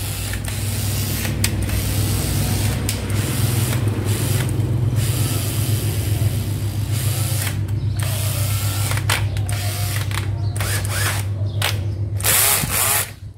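National EZ6207 cordless drill running under test, its motor and gearbox whirring with a rapid ratcheting clatter of the clutch slipping; it stops just before the end.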